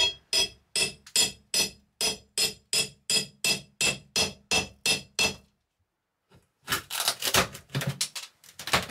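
Hammer tapping a steel pry bar about fifteen times in a steady rhythm, each strike ringing, to drive it under the frame of an RV roof vent. After a short pause comes a stretch of rapid scraping and rattling as the bar works the frame loose.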